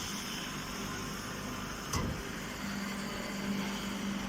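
Grass silage baler machine running with a steady mechanical hum and a constant low tone, with a single knock about two seconds in.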